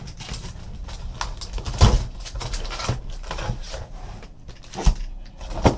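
Cardboard trading card box being handled and opened: rustling and scraping with a few dull knocks, the loudest about two seconds in and near the end.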